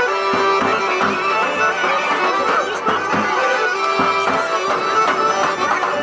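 Bulgarian folk dance music: a reedy, ornamented melody over a held drone, with strokes on a large bass drum.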